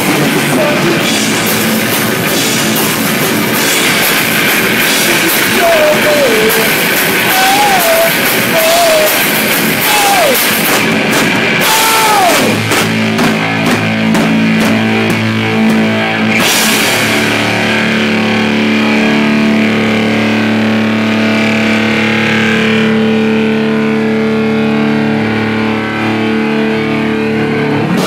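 Live heavy rock band playing loud: drums with crashing cymbals under distorted guitar with bent notes. About halfway through the drums stop and a held chord rings on until the drums come back in at the very end.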